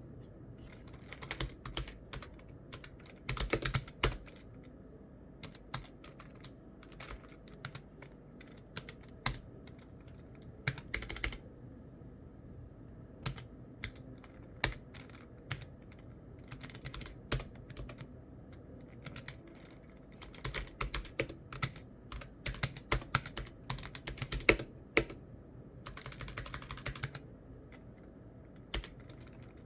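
Typing on a keyboard: irregular keystroke clicks in short runs with pauses between, busiest about two-thirds of the way through.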